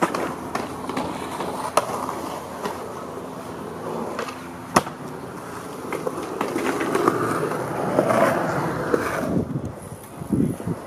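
Skateboard wheels rolling over concrete skate-park ramps and flats, with several sharp clacks of the board hitting the concrete, the loudest about halfway through. The rolling grows louder in the second half.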